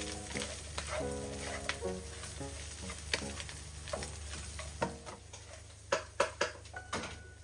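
Fried tofu cubes and meat sizzling in a wok while a wooden spatula stirs and scrapes them, with sharp knocks against the pan, several of them near the end. Background music with held notes plays over the first few seconds.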